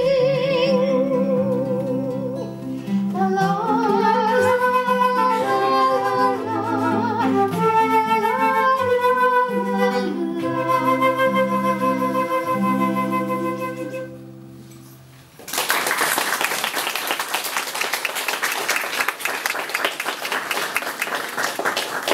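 A live acoustic song ends: a held sung note with vibrato, then a flute melody over acoustic guitar that fades out about fourteen seconds in. About a second later a small audience starts applauding and keeps clapping to the end.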